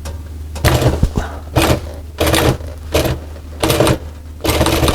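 Sewing machine running in short bursts, about five quick runs of stitching with pauses between, as it is eased around a tight corner.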